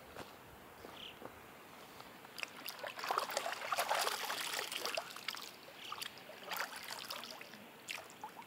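Water from a mountain lake splashing and dribbling as it is scooped up by hand, a dense burst of splashing in the middle and scattered drips before and after.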